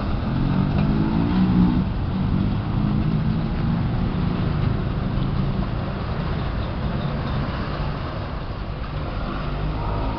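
Road traffic moving off across wet asphalt: small motorcycle and car engines revving up as they pull away through the first few seconds, over a steady hiss of tyres on the wet road.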